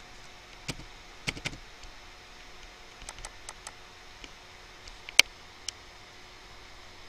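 Computer mouse clicking: a dozen or so short, sharp clicks at irregular intervals, the loudest about five seconds in, over a faint steady hum.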